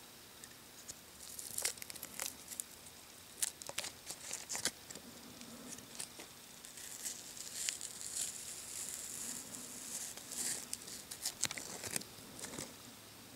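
Masking tape being peeled and crinkled on a plastic model kit: faint, irregular crackles and small ticks.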